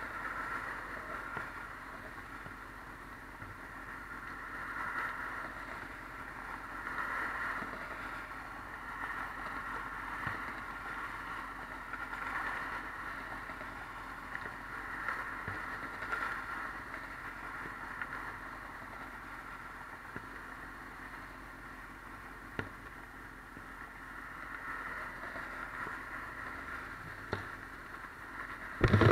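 Steady hum of freeway traffic, swelling and fading as vehicles pass. A few faint knocks sound through it, and a single loud thump comes right at the end.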